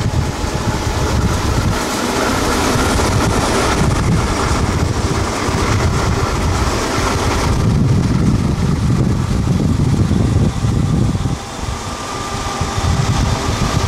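Norfolk Southern and BNSF diesel freight locomotives running at speed alongside a moving car, blended with a steady, heavy rumble of road and wind noise from the pacing car.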